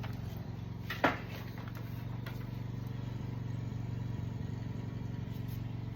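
Zero-turn riding mower's engine running at a steady, even speed, with one sharp click about a second in.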